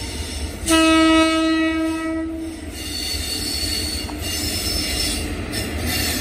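Indian Railways electric locomotive hauling LHB coaches sounds its horn once, a single steady blast of about two seconds starting just under a second in. The rumble and hiss of its wheels on the track runs underneath as the train approaches at speed.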